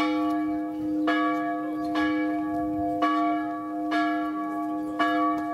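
A church bell tolling, struck about once a second, each stroke ringing on into the next.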